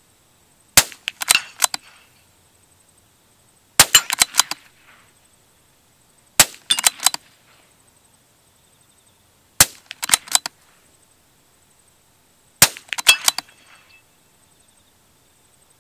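Five shots from a suppressed .22LR rifle, one about every three seconds, fired at steel targets in a timed speed stage. Each shot is followed within about half a second by a short cluster of clicks.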